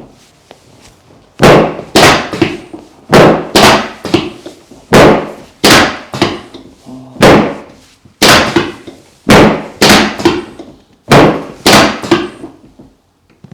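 A rapid series of loud, sharp thuds, about two a second in runs of two to four with short pauses between runs, nearly twenty in all.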